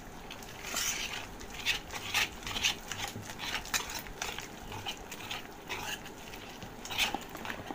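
Wire whisk beating thick besan batter in a metal plate: repeated scraping strokes, the wires clicking against the metal, with one louder stroke near the end.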